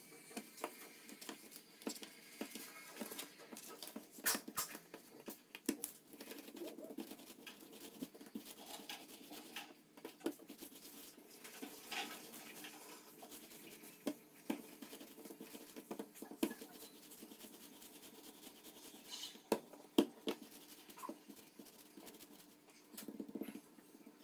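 Soft, sticky biscuit dough being worked by hand on a granite countertop: a plastic dough scraper tapping and scraping on the stone as it cuts the dough, and hands patting and rolling the pieces into logs. The sound is faint and irregular, with scattered light taps and a few sharper knocks.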